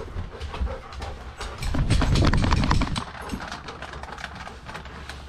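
Quick taps and thuds of a dog's paws as it moves, picked up by a camera strapped to the dog. The loudest part is a stretch of rumbling about two seconds in, which lasts a little over a second before the sound settles to a low hum.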